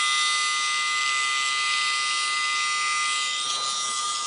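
Dremel rotary tool, used as a dog nail grinder, running steadily with a high whine over a hiss.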